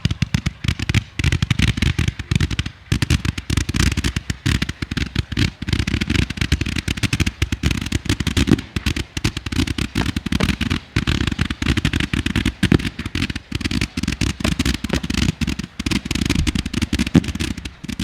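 Low-noise consumer fireworks going off in a dense, continuous run of rapid pops and crackles.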